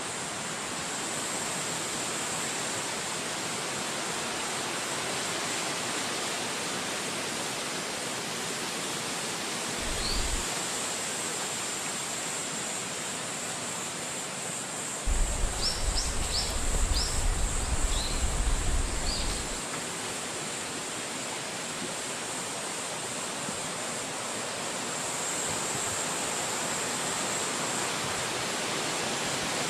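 Wind blowing steadily through forest trees as an even rushing hiss. A bird gives short high chirps once about ten seconds in and several times about halfway through. A low rumble of wind buffeting the microphone comes with a gust at the same point.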